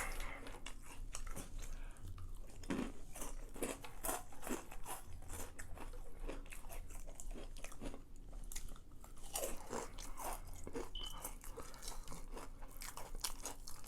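Close-miked chewing and crunching of crispy fried chicken tenders: a continuous run of small crunches and crackles as the breading is bitten and chewed.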